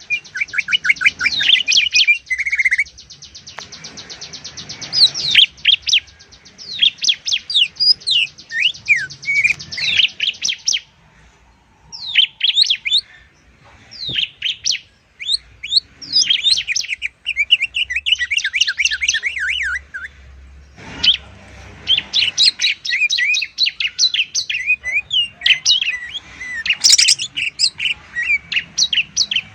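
Greater green leafbird and bar-winged prinia singing in fast bursts: rapid high chirps and quick trills, with brief pauses.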